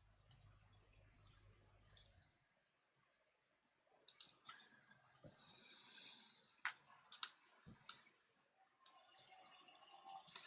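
Faint, scattered small clicks and a brief scrape of a tool on a tablet's internal parts as a ribbon-cable connector is worked at.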